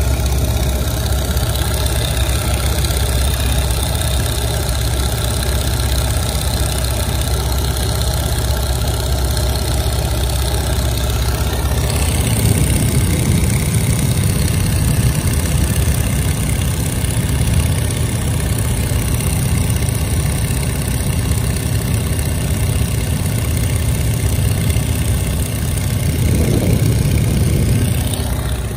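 Engine of a 1929 Travel Air biplane running steadily, its low rumble growing heavier about twelve seconds in.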